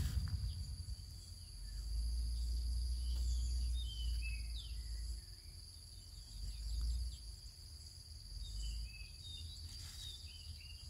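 Outdoor ambience: insects droning steadily at a high pitch, birds chirping now and then, and a low rumble that swells and fades.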